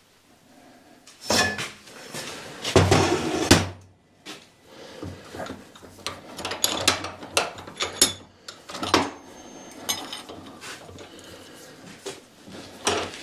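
Steel bar being bent in a bench vise with a pipe for leverage: metal scraping and clanking, loudest about a second and about three seconds in. Then lighter clinks and knocks as the bar is handled at the vise.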